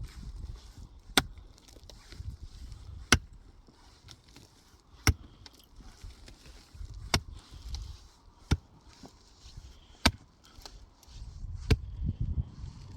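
Seven sharp chopping strikes, one roughly every one and a half to two seconds, with a low rumbling noise between them.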